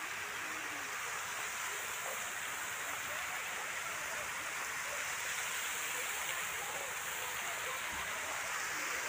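Steady rush of running water in a pool, with faint voices underneath.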